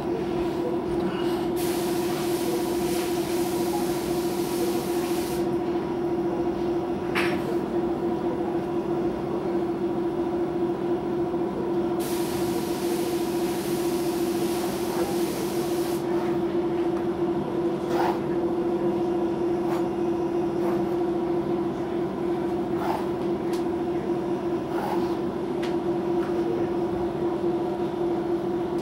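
A steady machine hum, one low tone with a few higher ones. Over it, a hand knife scrapes through synthetic bag material along a cardboard template: two stretches of hiss a few seconds long, and a few light clicks.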